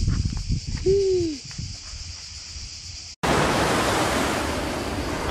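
Cicadas buzzing over gusty wind rumble on the microphone, with one short falling tone about a second in. About three seconds in the sound cuts abruptly to a steady, louder, even rushing noise.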